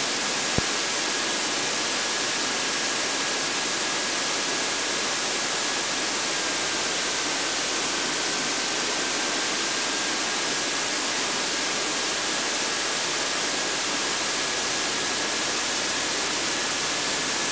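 Steady hiss of an aircraft intercom audio feed with no one talking, with a faint high whine held steady throughout and one small click just after the start.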